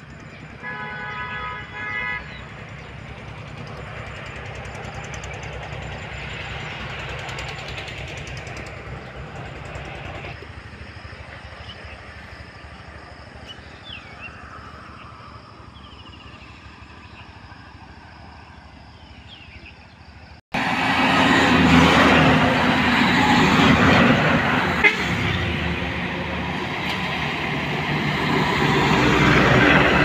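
Road traffic passing close by, an even rushing of engines and tyres that is loudest in the last third of the stretch. Earlier, a vehicle horn sounds once for about two seconds, followed by a more distant traffic hum and a quieter stretch with a few faint bird chirps.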